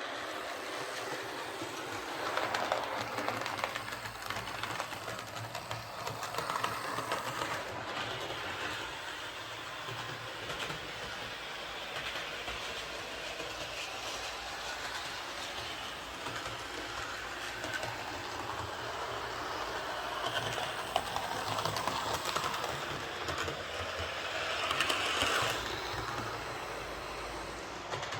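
Hornby Class 47 OO gauge model locomotive with a ringfield motor running around a layout after repair: a steady motor whirr with light clicking of wheels over the track, growing louder several times as it comes past.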